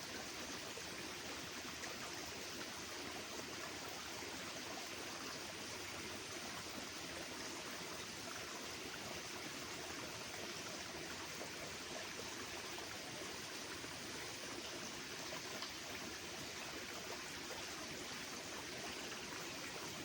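A steady, even rushing hiss with no distinct bird calls standing out.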